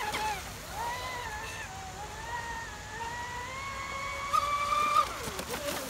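Traxxas Spartan RC boat's brushless electric motor whining at speed, its pitch rising and falling with the throttle and climbing steadily through the second half before dropping near the end. Two short sharp sounds come about four and five seconds in.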